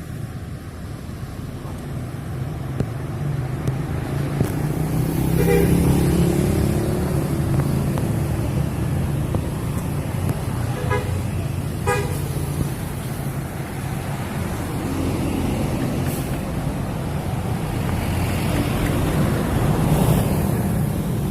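Buses passing close with engines rumbling, sounding their multi-tone telolet horns in short bursts twice, about five seconds in and again around eleven to twelve seconds in. The engine noise swells as each bus goes by, with another bus passing near the end.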